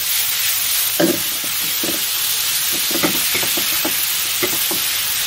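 Sliced bitter melon sizzling in a wok as a wooden spatula stir-fries it, with a steady hiss and a scraping stroke of the spatula against the pan about every second.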